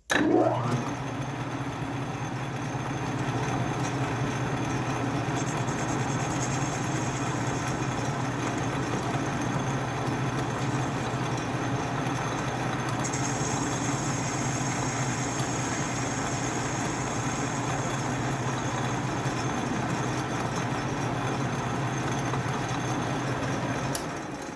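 Atlas metal lathe switched on and running steadily with a low motor hum. It is switched off with a click shortly before the end and winds down.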